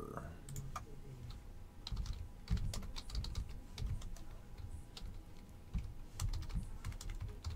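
Typing on a computer keyboard: an irregular run of quick key clicks with short pauses, starting about a second in.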